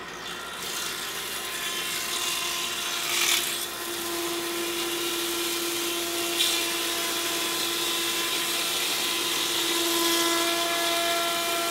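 Powermatic 180 thickness planer with a LUX CUT III carbide-insert cutterhead planing a board, giving a steady, continuous hum with a held tone rather than a chopping sound. There are two brief louder moments, about three and six seconds in.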